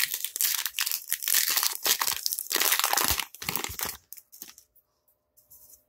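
A baseball card pack's wrapper being torn open and crinkled by hand. The crackling stops about four seconds in as the cards come out.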